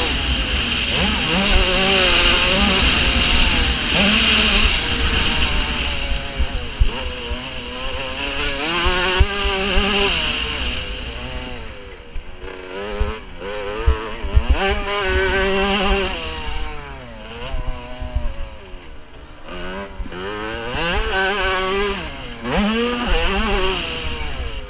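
Motocross bike engine revving up and down with the throttle and gear changes, easing off briefly twice, with wind rumble and knocks on the helmet camera's microphone.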